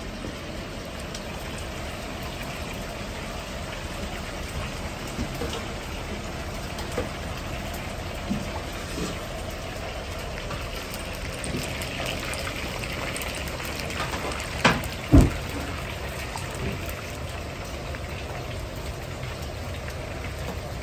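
Starch-coated chicken pieces deep-frying in a wok of hot oil: a steady crackling sizzle. Small clicks through it, and two sharp metal knocks about half a second apart a little past the middle, the loudest sounds.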